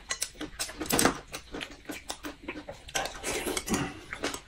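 Close-up eating noises: slurping and chewing, with metal spoons clicking against glass soup bowls.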